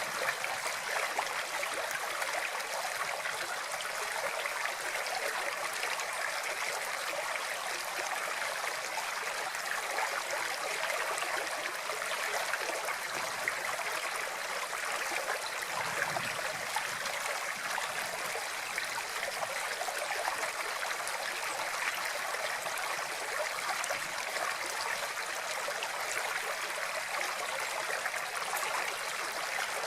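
Flowing water, a steady stream rushing and trickling without change.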